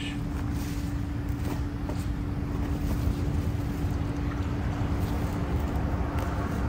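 Road traffic on a bridge overhead: a steady low rumble with a constant hum and no distinct passes.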